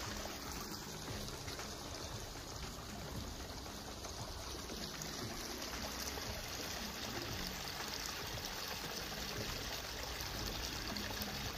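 Shallow bush creek running steadily over rocks and branches into a pool, a continuous trickling wash of water.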